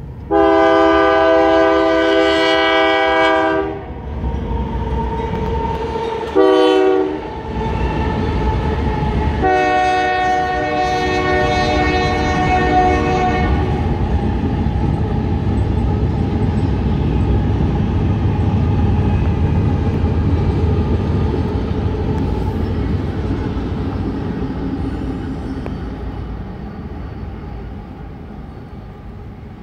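Union Pacific diesel freight locomotives sounding a multi-tone air horn three times, a long blast, a short one and a long one. Then the engines run past in a steady rumble that fades near the end.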